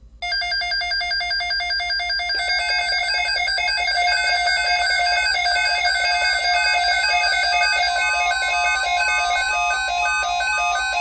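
Weather radio's electronic alert alarm: a loud, rapidly alternating two-note beeping with many overtones, lasting about eleven seconds and cutting off suddenly near the end, leaving a fainter steady tone. It signals an incoming severe thunderstorm watch alert.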